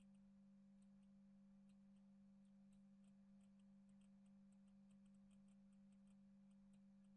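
Near silence: a faint steady low hum.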